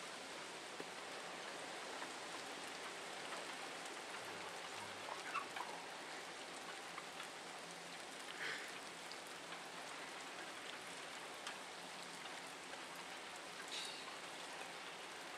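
Steady rain falling in a thunderstorm, with a few louder drops or drips standing out now and then.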